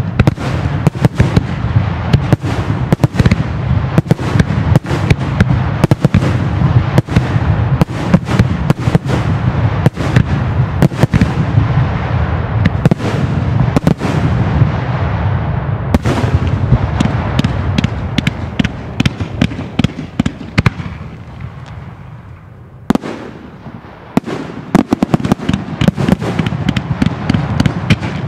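Fireworks display: a dense, rapid barrage of bangs over a constant low rumble. The barrage thins out about three-quarters of the way in, then a fresh volley of sharp bangs starts.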